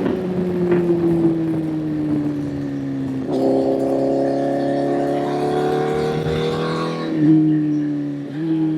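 Honda CBR1000 inline-four engine under way. Its pitch falls for about three seconds, jumps up sharply at a gear change, then climbs steadily as it pulls, with two more quick shifts in pitch near the end.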